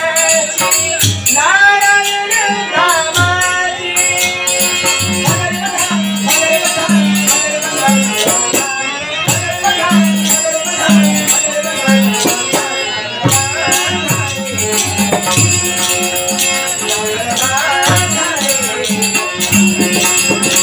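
A male voice singing a Marathi devotional stage song into a microphone, with the melody bending and held over rhythmic percussion accompaniment that includes jingling, rattling strokes.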